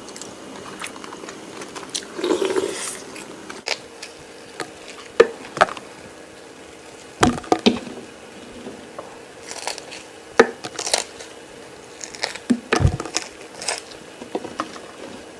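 A person chewing cooked frog: wet smacking and crunching mouth sounds with scattered sharp clicks, in irregular bursts.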